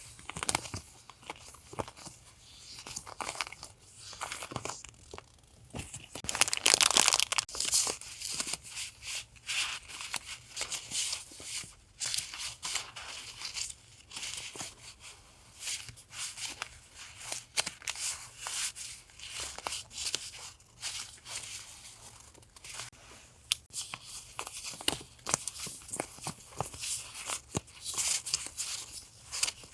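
Paper and plastic sticker packaging being handled: irregular rustling, crinkling and tearing with small taps, loudest about six to eight seconds in.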